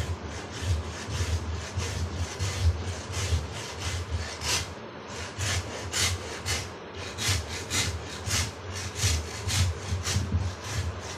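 A metal hand file rasped quickly back and forth across a wooden polo stick shaft, shaping the wood. There are about two scraping strokes a second, each with a dull knock.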